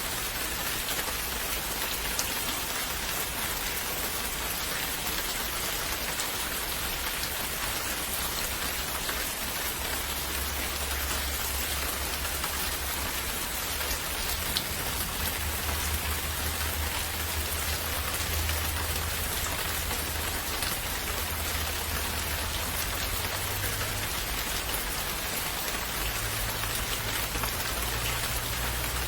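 Steady rain falling, a dense even patter with no pauses. A low rumble underneath grows stronger about a third of the way in.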